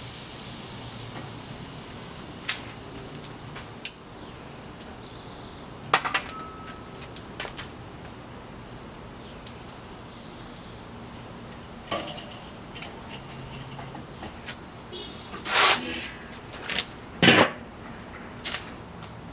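Metal tongs clicking and scraping on a kettle grill's cooking grate as meat is handled, scattered single clicks. Near the end, a few louder metal clanks as the domed lid is set on the kettle.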